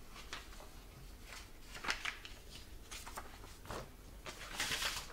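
Paper sheets being handled on a tabletop: a few brief rustles and scrapes, the loudest about two seconds in, then a longer sliding rustle near the end.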